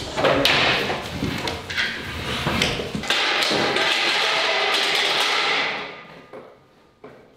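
Knocks and thuds of wooden banquet-table sections being pulled apart and set down. After about three seconds comes a steady rushing noise that fades away about a second before the end.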